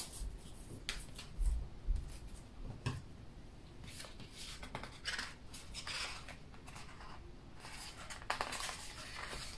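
Paper rustling and scattered light clicks from sticker sheets in a sticker book being handled and shifted, with a few soft thumps against the table in the first couple of seconds.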